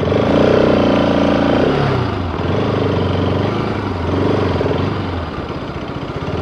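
Bajaj Pulsar RS200 motorcycle engine creeping in stop-and-go traffic. It revs briefly, falls back about two seconds in, and settles into a low, steady idle.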